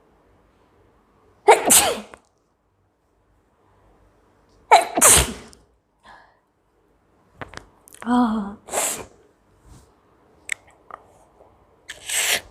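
A woman sneezing twice, loudly, about three seconds apart, brought on by tickling her nostril with a leaf.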